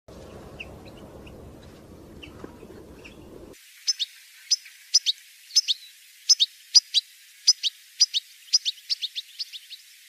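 European goldfinch 'batbata' calls: short, sharp notes falling in pitch, often in pairs, coming quicker near the end. They start suddenly about three and a half seconds in, after a faint stretch of scattered chirps over low background noise.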